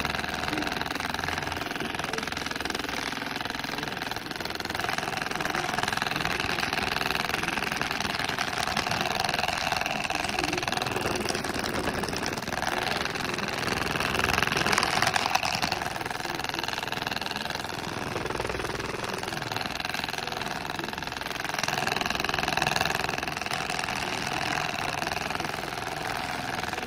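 Handheld percussive massage gun running with a steady motor hum as its head presses into a cat's neck and shoulders; it grows louder for a moment about fourteen seconds in.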